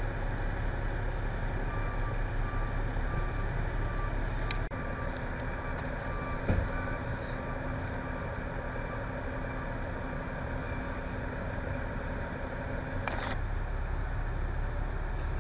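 Engines of parked emergency vehicles, fire engines and an ambulance, idling in a steady low rumble, with a faint series of short beeps in the first few seconds.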